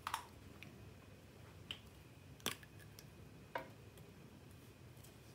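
Four sharp clicks of plastic lip balm tubes and caps being handled, a cap being pulled off, the loudest about halfway through.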